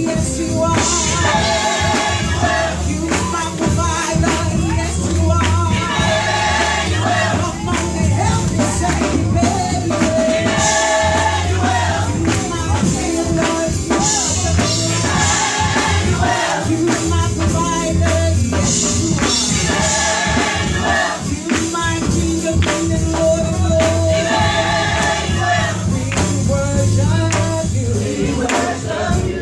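Gospel choir singing live, backed by a steady beat and a pulsing bass line.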